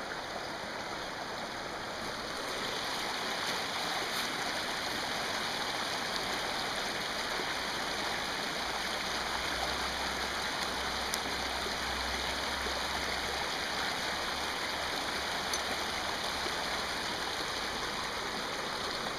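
Fast mountain river rushing steadily over stones, getting a little louder about two seconds in.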